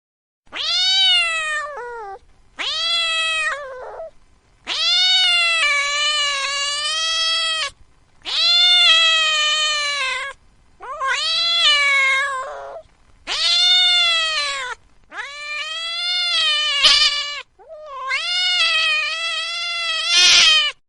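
Domestic cat meowing: eight long, drawn-out meows with short gaps between them, each call dropping in pitch at its end.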